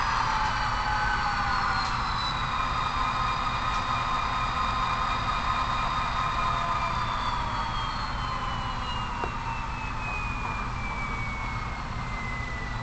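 HO scale model diesel locomotive: a whine that slowly and steadily falls in pitch over a steady low rumble, as the engine sound or motor winds down.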